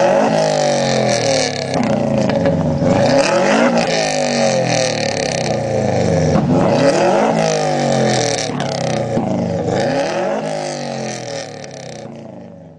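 Car engine revving, its pitch rising and falling again and again, fading out near the end.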